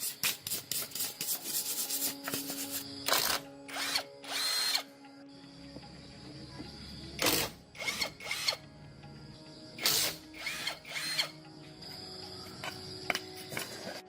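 Hand tool work on metal parts: quick rhythmic scraping strokes, about five a second, then a string of short bursts from a power tool, each about half a second long.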